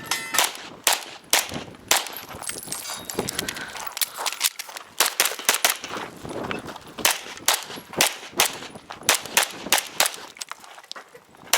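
Canik Rival 9mm pistol fired in rapid strings of shots with short pauses between them, during a timed course of fire.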